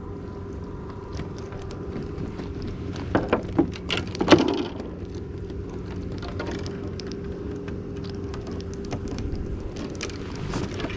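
Steady low motor hum throughout, with scattered clicks and taps on top, the loudest cluster about three to four and a half seconds in: small fish and a multi-hook Apollo rig being handled on a wooden deck.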